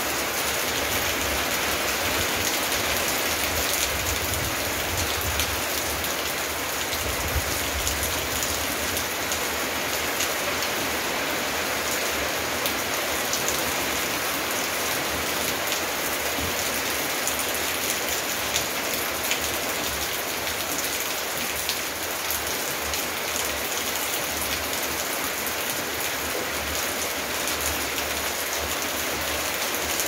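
Steady rain: an even hiss with the patter of individual drops.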